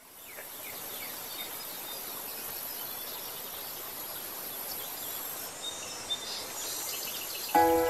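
Outdoor countryside ambience: a steady even hiss with a few faint bird chirps and a thin high insect-like tone that stops about two-thirds of the way through. Music starts suddenly near the end and is louder than the ambience.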